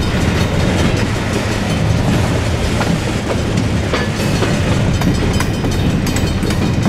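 Freight train cars rolling past in a steady low rumble, their wheels clicking over the rails at irregular intervals.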